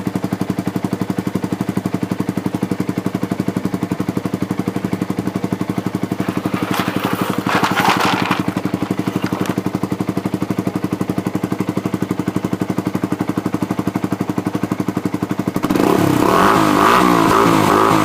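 Yamaha YZF-R125's single-cylinder four-stroke engine idling steadily through a Scorpion exhaust with its silencer baffle fitted, then revved up and down for the last couple of seconds.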